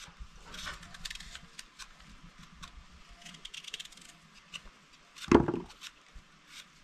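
Small kitchen knives cutting and peeling apples by hand: a scatter of small crisp scrapes and clicks, with one louder knock about five seconds in.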